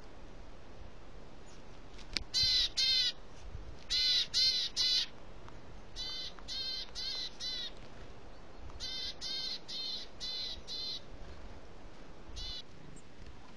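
A corvid calling loudly: short harsh caws in groups of two to five, about two a second, with a single call near the end.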